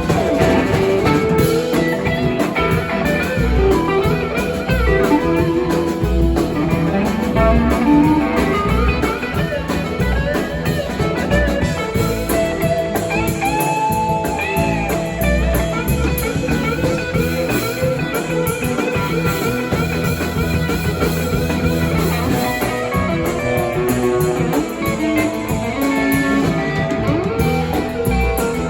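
A rock band playing live, an electric guitar leading over bass and drum kit, with bent guitar notes in a blues-rock style.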